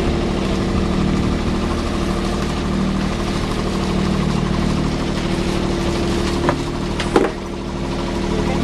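A Catalina 30 sailboat's inboard engine idles steadily in neutral. Two short knocks come about six and a half and seven seconds in.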